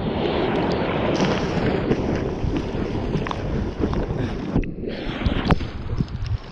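Sea water rushing and splashing around a board-mounted action camera as a bodyboarder paddles hard for a wave, with wind buffeting the microphone. About two-thirds of the way through the sound goes briefly muffled as the camera dips under water, followed by sharp splashes.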